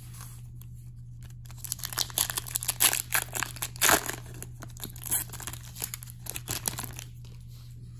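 Foil wrapper of an Upper Deck MVP hockey card pack being torn open and crinkled by hand: a run of sharp crackles that starts about a second and a half in, is loudest in the middle and dies away near the end.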